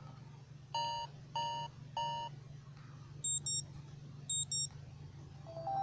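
Amazon Kindle Fire alert tones: three identical medium-pitched beeps about half a second apart, then two short high-pitched double beeps about a second apart. Just before the end a new melodic tone sequence starts.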